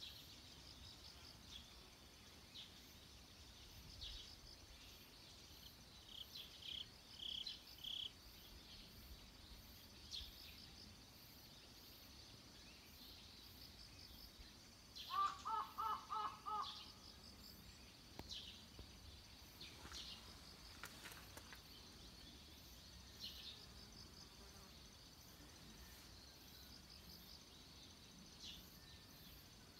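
Quiet outdoor ambience with faint, scattered bird chirps; about halfway through, a brief run of five quick pitched calls stands out as the loudest sound.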